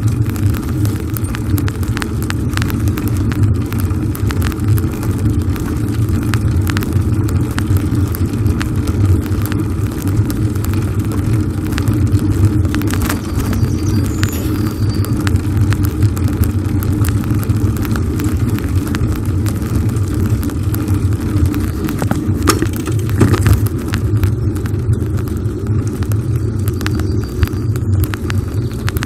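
Steady low rumble of wind and tyre noise on the microphone of a camera riding along on a moving bicycle on an asphalt path, with frequent small clicks and rattles.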